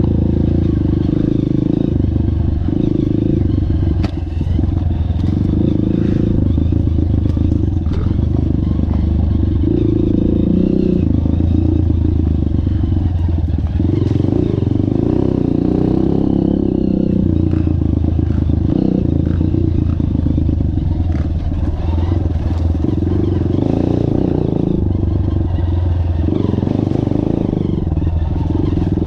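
Trail motorcycle engine running continuously under way on a dirt trail, its level swelling and easing with the throttle, with clattering from the bike over the rough ground.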